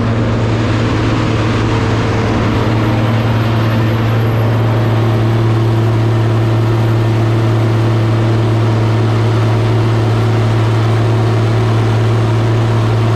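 Diesel engine of a large farm machine running steadily at constant speed: a deep, even drone that holds its pitch throughout.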